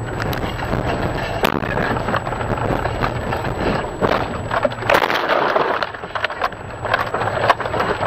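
A car leaving a snowy road and ploughing through deep snow in a field: road rumble gives way to knocks, bangs and rattles from the body, with a loud rush of snow striking the car about four to six seconds in.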